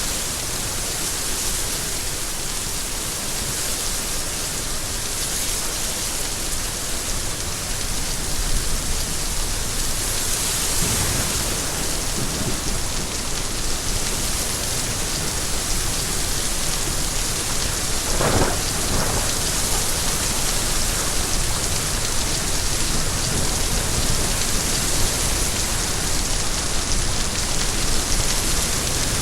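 Steady rain falling, with a low rumble coming in about a third of the way through.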